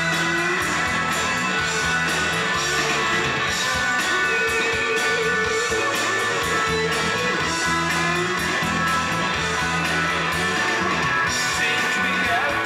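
Pop-rock band playing live, electric guitar to the fore, in an instrumental stretch without vocals. Heard through a camcorder microphone in the audience.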